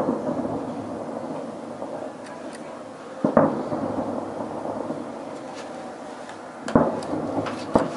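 Distant aerial firework shells bursting in a salute: four booms, each followed by a rolling rumble. The booms come about three seconds apart, and the last two fall about a second apart near the end.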